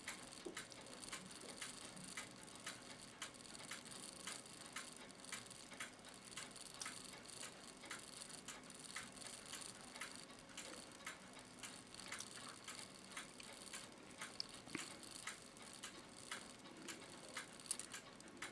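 Bare c1915 New Haven Tambour No. 7 clock movement running out of its case, clicking faintly and steadily at about three clicks a second.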